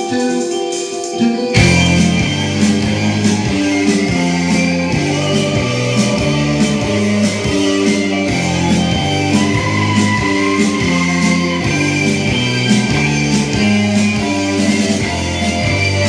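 Rock music with guitar; the full band comes in about a second and a half in, over a steady beat of regular percussive hits.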